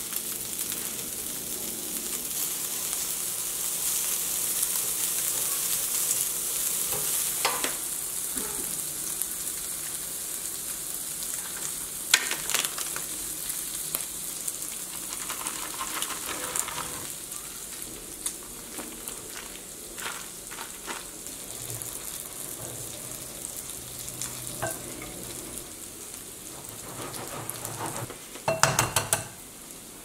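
Diced cured pork sizzling as it fries in a stainless steel skillet, the sizzle strongest over the first several seconds and fainter after, with scattered clicks and knocks of utensils. A quick run of sharp taps comes near the end.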